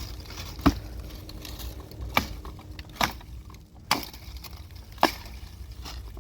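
Five sharp knocks at uneven spacing of about a second, over a low steady rumble.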